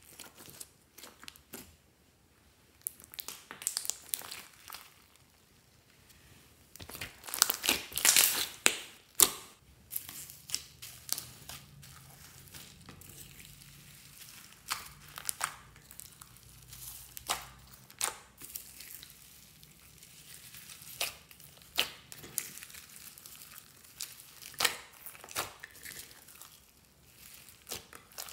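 Hands squeezing, stretching and kneading slime: sticky crackles, pops and crunches as the slime folds and tears, with foam beads in clear slime crunching under the fingers. The crackling comes in irregular clusters and is densest and loudest about seven to nine seconds in.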